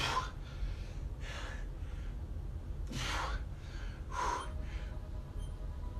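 A man breathing hard during bent-over reverse flys: four heavy, airy breaths, roughly one every second and a half.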